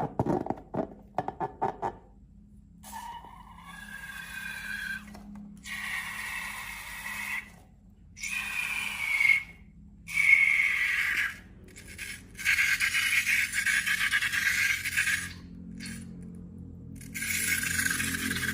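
Rubbery scraping and squeaking from balloons and slime being handled, with quick tapping clicks in the first two seconds, then a run of short scraping passages that start and stop abruptly, some with a squeal that bends in pitch.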